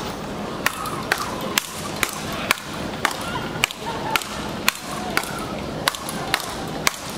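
Speedball rally: two players' rackets strike the tethered ball in turn, a sharp crack about twice a second, steady and even-paced.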